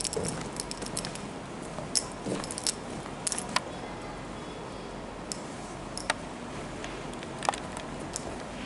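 Indoor room tone with a low steady hum, dotted with scattered light clicks and taps, a few every second near the start and sparser later on.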